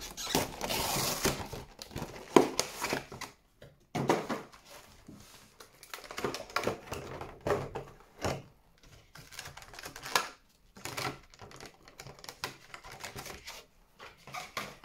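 Cardboard Pokémon TCG collection box being torn open by hand: irregular bursts of ripping, crinkling and rustling with many sharp clicks and snaps, the loudest snap about two and a half seconds in.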